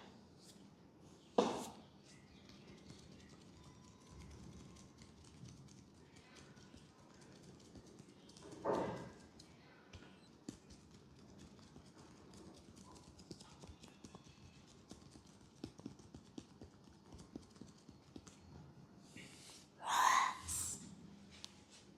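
Hands at work in a head and neck massage: many light taps and clicks on skin, with a sharp smack about a second and a half in and a couple of louder slaps or cracks later, the loudest near the end.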